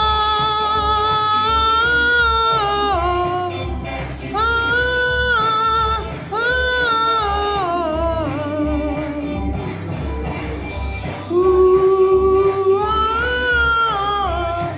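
Doo-wop vocal music: a singer holds long, wordless notes that glide up and down between pitches, over a backing track with a pulsing bass beat.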